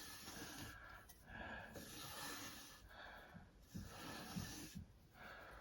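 Faint, even strokes of a sharpening stone on a TSPROF Kadet guided sharpener, rubbing along a chef's knife edge, about five passes each just under a second long. These are the last few passes to finish the edge.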